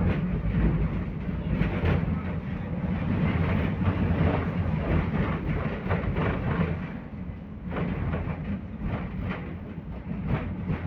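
Belkommunmash BKM 60102 tram running along the track, heard from on board: a steady low rumble of wheels and drive, with frequent rattles and clacks over the rails. The noise drops briefly about seven seconds in, then picks up again.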